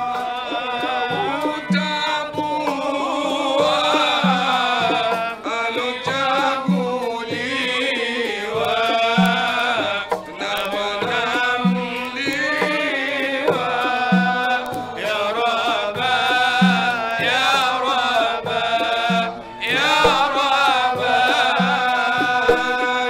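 Male voices chanting a maulidi hymn over drum accompaniment, with a deep drum stroke recurring about every two and a half seconds.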